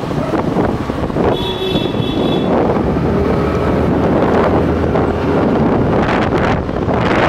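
Wind buffeting the microphone on a moving motor scooter, over the scooter's engine and tyre noise on the road. A brief high-pitched tone sounds about a second in.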